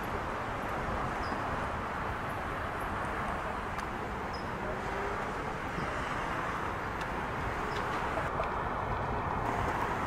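Steady hum of distant city traffic, with a small bird giving a short high chirp every few seconds.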